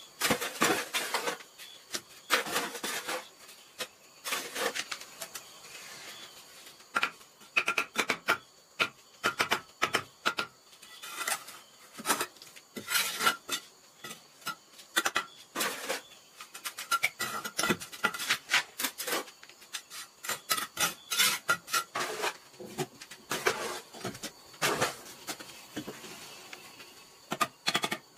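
Bricklaying with a steel trowel: irregular scrapes of the trowel spreading and cutting cement mortar, mixed with knocks and clinks as clay bricks are set and tapped into place.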